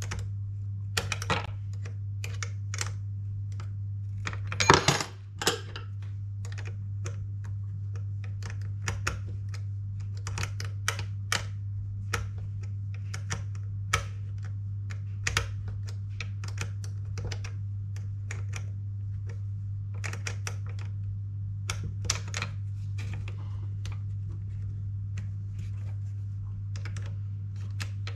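Hand tools and small RC-car parts clicking and tapping irregularly while the buggy's front end is taken apart, with a louder cluster of knocks about five seconds in, over a steady low hum.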